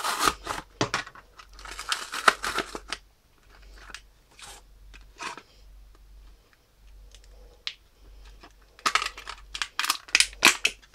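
Blister pack being opened by hand: the cardboard backing card tears and rips in short bursts through the first few seconds, then the clear plastic blister crinkles and crackles as it is squeezed, a burst of crackling about nine seconds in.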